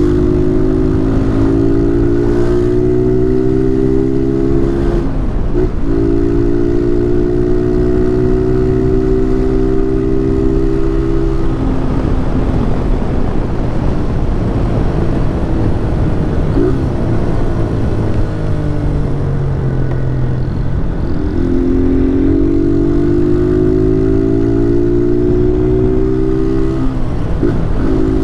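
Honda 160 motorcycle's single-cylinder engine pulling through the gears, its note climbing slowly and dropping at each upshift. In the middle stretch the engine note fades under rumbling wind and road noise, then climbs again through another shift near the end.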